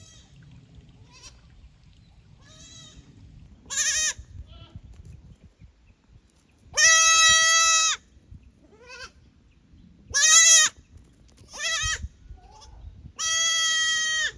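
Young goats (kids) bleating, a string of separate high-pitched calls, each under about a second long, with the longest and loudest about seven seconds in and another long one near the end.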